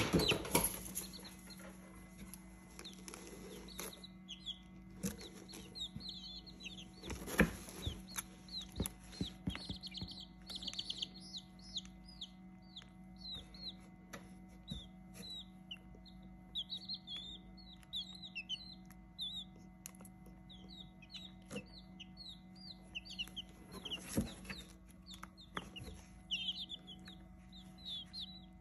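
Baby chicks peeping non-stop, many short high cheeps overlapping one another. A couple of louder knocks and rustles come about a quarter of the way in and again near the end, over a steady low hum.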